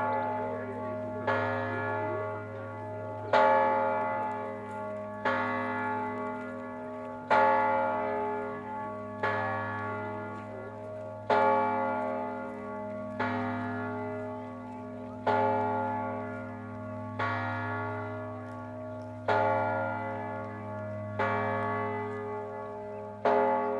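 A single large bell tolling slowly, about one stroke every two seconds, each stroke ringing on into the next with a deep hum beneath. It is a mourning toll for a memorial commemoration.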